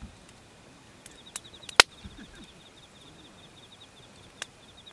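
Open wood fire crackling, with a few sharp pops, the loudest about two seconds in. Behind it a faint, fast, even insect trill.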